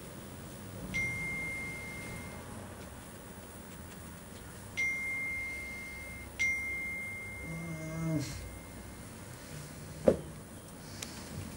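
An electronic ding sounds three times: a single steady high tone with a sharp start, about a second in, near five seconds and just after six seconds. A brief low voice-like sound comes near eight seconds, and a sharp click near ten seconds is the loudest moment.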